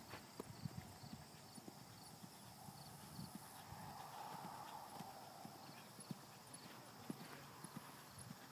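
Faint, irregular hoofbeats of a horse moving round a sand arena, soft thuds of hooves on sand footing.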